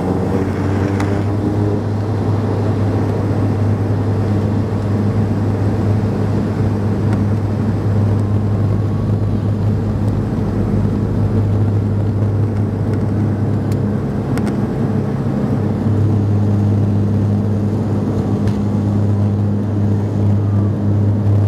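Bombardier Dash 8 Q400's Pratt & Whitney PW150A turboprops at takeoff power during the takeoff roll, heard from the cabin: a steady low propeller drone. A rumble of the wheels on the runway swells in the middle, and two brief sharp clicks come in the second half.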